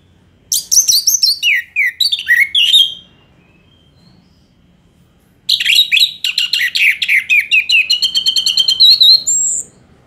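Orange-headed thrush (Geokichla citrina) singing: two loud song phrases made of quick notes sweeping downward in pitch, the first about two and a half seconds long, the second about four seconds long and ending in a fast string of repeated notes.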